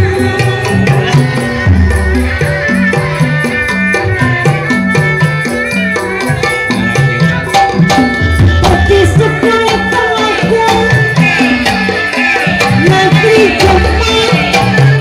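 Live Sundanese jaipong gamelan music. Kendang hand drums beat quick, driving patterns over the ringing of bronze kettle gongs and a hanging gong.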